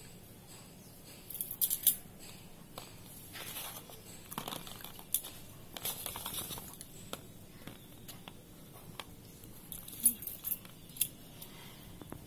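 Quilling paper rustling as it is hand-rolled, with scattered sharp, high clicks, the loudest about two seconds in and again about ten seconds in.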